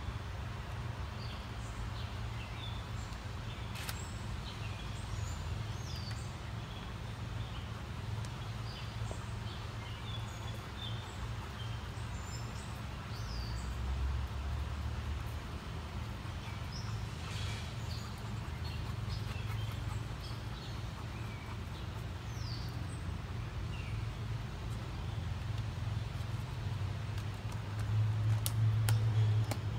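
Birds chirping in short, scattered calls over a steady low rumble, with a few faint clicks from airline tubing and a plastic valve being handled.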